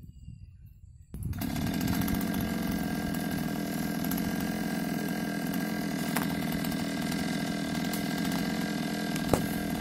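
Chainsaw engine starts abruptly about a second in and then runs steadily at high speed. There is a single sharp knock near the end.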